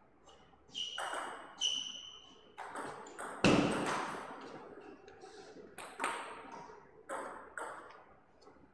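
Table tennis ball clicking off paddles and bouncing on the table in a short rally: about eight sharp pings at uneven intervals, the loudest about three and a half seconds in.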